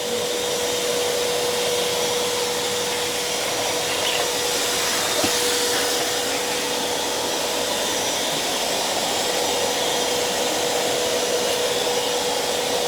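Miyako wet/dry canister vacuum cleaner running steadily with a constant whine, sucking spilled water up off a floor.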